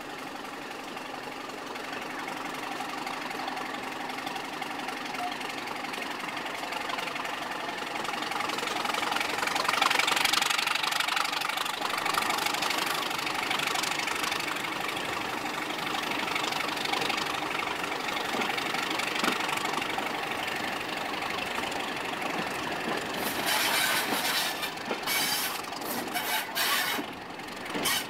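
Class 31 diesel-electric locomotive's English Electric V12 engine running under way, heard from the cab window. It gets louder about eight seconds in, and near the end an uneven rushing noise comes in over it in short gusts.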